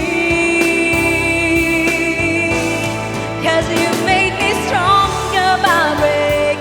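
Female singer performing a pop ballad cover over a backing track: a long held note, then a run of quick wavering notes.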